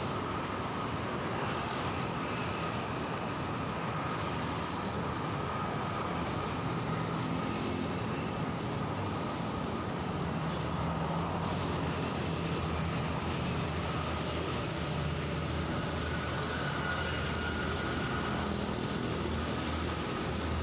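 Steady road traffic noise from cars and motorcycles passing on a city street, an even rumble that keeps going.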